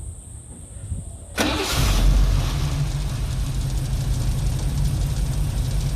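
Holden VK Commodore's 202 straight-six starting about a second and a half in, catching at once and settling into a steady, uneven idle. It is lumpy and misfiring, running on what the owner reckons is probably four of its six cylinders after years of sitting.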